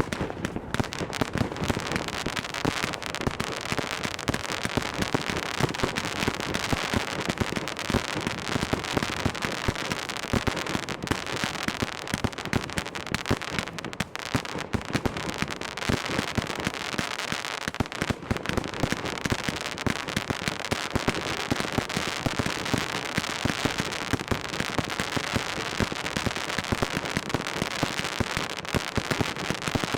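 Fireworks display with a dense, continuous barrage of bangs and crackling, many reports a second with no let-up. It picks up sharply right at the start.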